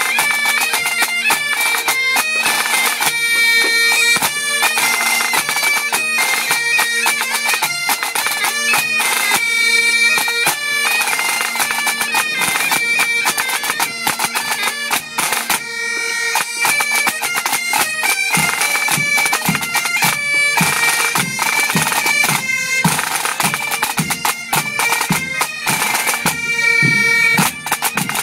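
Breton bagad playing: bagpipes carry a melody over a steady drone, and low drum strokes join in about two-thirds of the way through.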